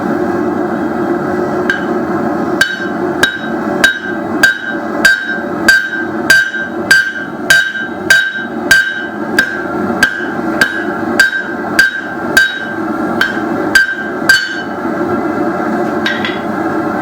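Blacksmith's hammer striking steel on an anvil in a steady run of about twenty blows, roughly one every 0.6 seconds, each with a short ring. The hammering stops about three seconds before the end of the run, then comes one last blow. The blows are straightening the twisted buckle stock back out.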